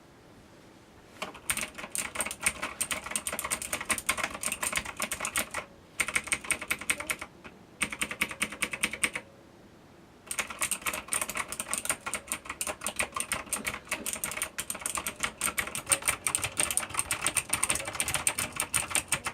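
Typing on a Havit mechanical keyboard with Cherry MX Blue switches: rapid, extremely loud clicky keystrokes in four runs broken by short pauses.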